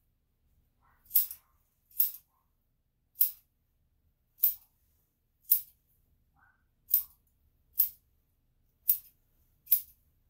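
Grooming scissors snipping through a dog's tail hair: nine short, crisp snips, roughly one a second, spaced a little unevenly.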